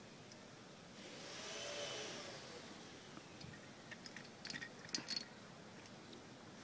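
A vehicle passes by, its sound swelling and fading within about a second and a half. About four to five seconds in come a few sharp clicks and taps from a small wooden toy helicopter being knocked against a wicker sofa.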